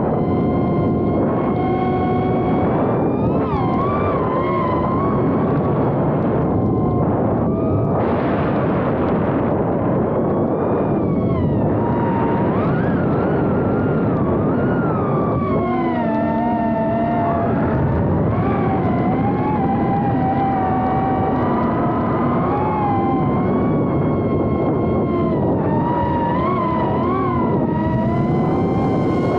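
Motors of a 3-inch FPV quadcopter whining, several tones at once rising and falling in pitch as the throttle changes, over a dense rushing noise.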